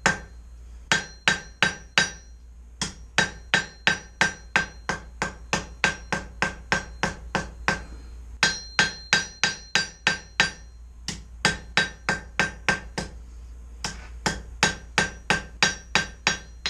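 Hand hammer striking hot 1/4-inch square steel bar on an anvil, drawing out a flat taper: a steady run of ringing blows, about three a second, with a couple of brief pauses.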